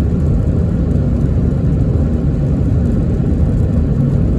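Steady road and engine noise heard inside a car's cabin while driving on the freeway.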